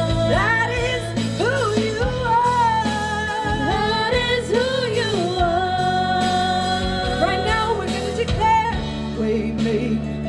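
Live worship music: a singer's long, gliding melodic lines over a band's steady accompaniment.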